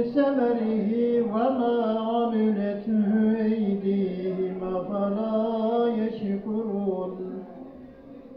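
A man reciting the Quran in a slow melodic chant, holding long notes that bend up and down; the phrase ends about a second before the end.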